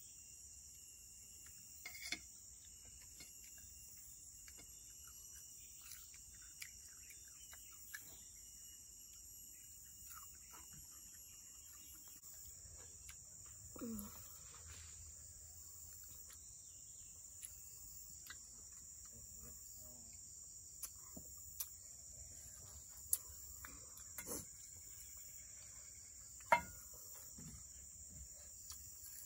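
Steady high-pitched drone of forest insects, with scattered small clicks and knocks throughout.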